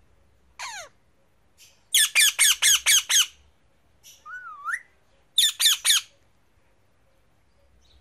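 Male Indian ringneck parakeet calling. A single falling call comes first, then a fast run of about six loud calls a couple of seconds in, a short wavy whistle, and a burst of three or four more calls around the middle.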